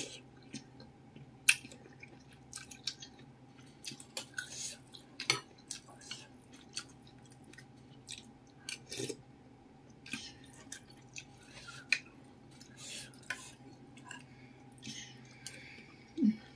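Close-up eating sounds: irregular chewing, lip smacks and slurps of noodles and meatball soup, with a metal spoon clicking against a ceramic bowl now and then.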